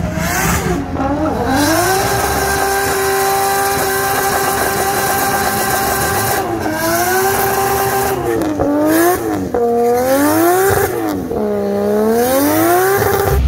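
Nissan Skyline sedan's engine revving hard through a smoky wheelspin burnout: held at steady high revs for several seconds, then revved up and down repeatedly in the second half.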